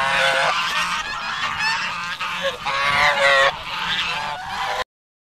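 Domestic geese honking at close range: a short burst of honks at the start and a longer, louder run about three seconds in. The sound cuts off suddenly near the end.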